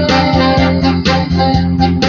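Tenor saxophone playing a song melody over a backing track with keyboard and a steady beat.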